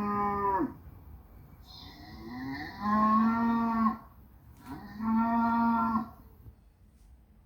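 Cattle mooing: the tail of one long moo, then two more long, steady moos of about a second each, the second of them sliding up into its note.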